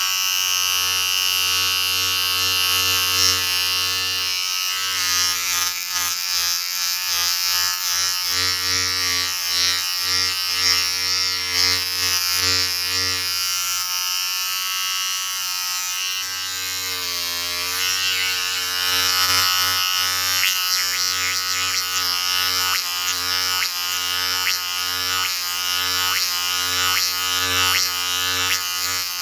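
Electric shaver running with a steady buzzing hum and a fine rattle, its pitch briefly sagging a little past halfway before recovering.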